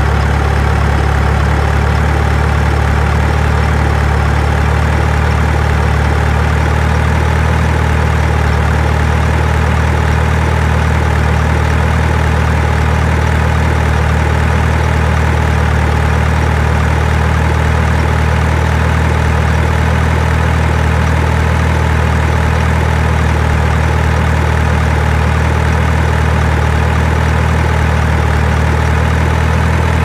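Heavy engine idling steadily, a deep unchanging drone with no revving.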